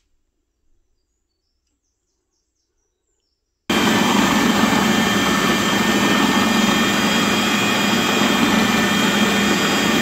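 General Technic electric food processor running, grinding raw chicken pieces with onion, coriander and spices into kofta mince. Near silence at first, then the motor's steady noise with a low hum starts suddenly nearly four seconds in.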